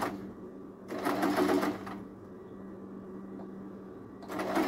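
Electric sewing machine stitching in short bursts of about a second, once about a second in and again near the end, the needle running in a fast even rattle. A steady low hum continues between the bursts.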